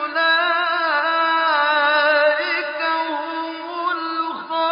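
A male reciter chanting the Quran, holding a long, drawn-out melodic line with wavering ornaments in the pitch; the voice breaks off briefly about four and a half seconds in and then resumes.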